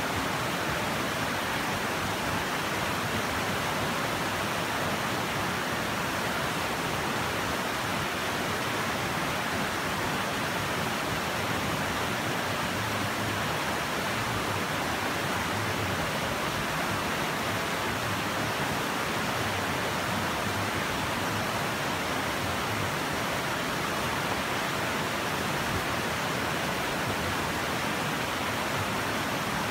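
Shallow, rocky river rushing over stones and small rapids: a steady, unbroken sound of flowing water.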